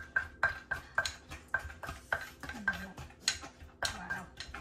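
Wooden pestle pounding papaya salad in a clay mortar, a steady run of sharp knocks at about three to four strikes a second, each with a short ring from the mortar.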